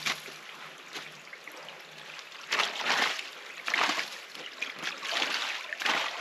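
Gloved hands scooping and sloshing mud and water out of a narrow drainage channel, in four splashy scoops about a second apart that start a couple of seconds in, over a low trickle of running water.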